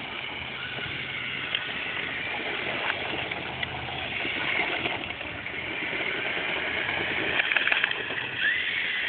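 Remote-controlled airsoft gun mounted on an RC car, its electric motors running with a steady whirr and whine as it fires BBs, with scattered sharp clicks and a quick run of them about seven and a half seconds in.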